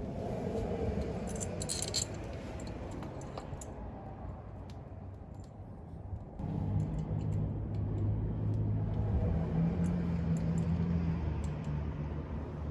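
Metal clinking and light rattling of a locking hub's cap and small parts being handled and fitted onto the hub, with a cluster of clinks about two seconds in and lighter ticks later. A low steady hum comes in a little past the middle.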